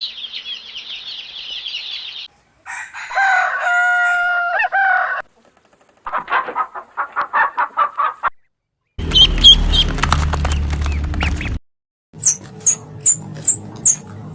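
A string of short animal-call clips cut one after another: a high twittering, a rooster crowing, a run of rapid clucks about six a second, a noisy stretch with a low rumble, and about five sharp high chirps near the end.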